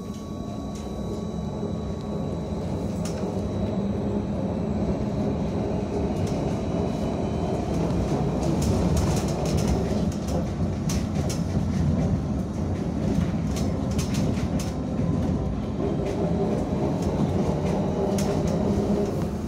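BKM 321 trolleybus heard from inside the passenger cabin while under way: a low rolling rumble of the drive and tyres that grows louder over the first several seconds as it gathers speed, with clicks and rattles from the body in the middle.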